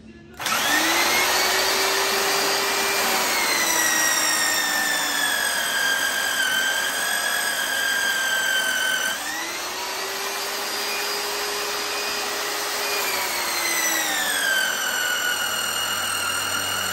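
Magnetic-base drill press starts up and bores through a steel plate into a truck frame rail. The motor's pitch sags as the cutter bites under load, comes back up about nine seconds in, and sags again about five seconds later.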